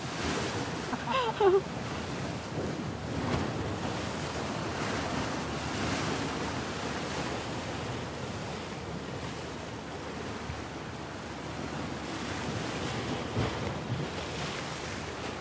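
Sea surf washing over shore rocks: a steady hiss of breaking waves.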